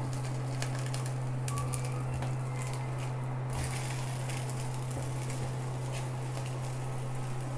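Silicone spatula clicking and scraping against a nonstick pan as a vegetable batter flatbread is flipped and pressed, with faint frying sizzle and a steady low hum underneath. The clicks cluster in the first few seconds.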